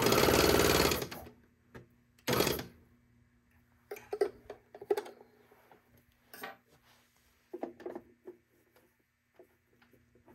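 Baby Lock Evolution serger's air-threading system firing: a loud burst of its pump and rushing air for about a second, then a second, shorter burst about two seconds in. Softer clicks and rustles of handling the machine and thread follow.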